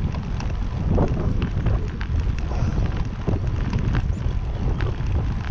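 Wind buffeting the microphone of a handlebar-mounted camera on a moving road bicycle, a steady low rumble, with tyre and road noise and scattered sharp clicks and knocks from the bike over the pavement.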